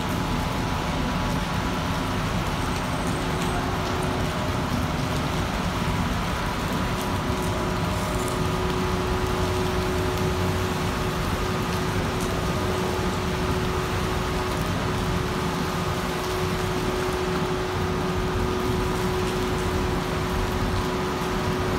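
Heavy rain falling on wet paving, mixed with the wash of road traffic on a wet road, in one steady even noise. A steady hum runs underneath.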